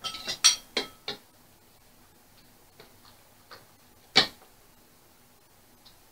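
Metal spoon and ladle clinking against ceramic bowls and a metal stew pot as budae-jjigae is served. A quick run of sharp, briefly ringing clinks in the first second, a few faint taps, then one loud clink about four seconds in.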